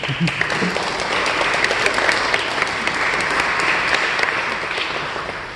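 An audience applauding. The clapping starts abruptly, holds steady, and dies away over the last second or so.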